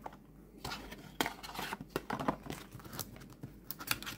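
Tarot cards and their cardboard tuck box being handled on a table: irregular rustles, scrapes and light taps.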